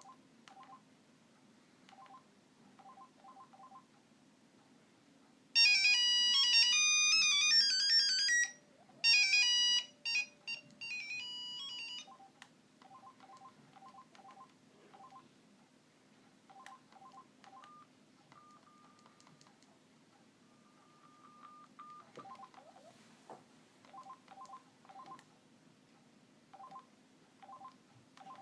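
Mitsubishi Trium Astral mobile phone keypad beeping in short single tones, with a loud ringtone melody starting about five seconds in and running about three seconds. Two shorter snatches of melody follow, then more key beeps, including two longer held beeps.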